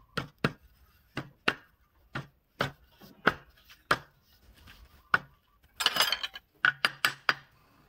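A series of sharp wooden knocks, roughly one or two a second, on a turned wooden workpiece at a woodturning lathe, with a short burst of rasping noise about six seconds in.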